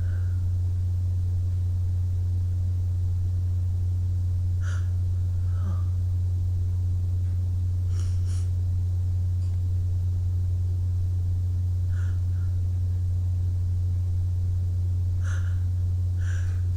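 A person sniffing and breathing through the nose now and then, with short faint breaths every few seconds, some in quick pairs, over a steady low hum.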